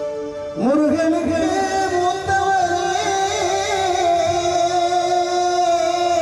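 A man singing into a microphone, amplified over a PA with live instrumental accompaniment: about half a second in he slides up into one long held note and sustains it with vibrato until near the end.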